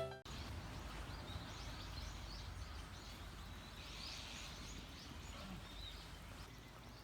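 Faint outdoor ambience with small birds chirping now and then. Background music cuts off right at the start.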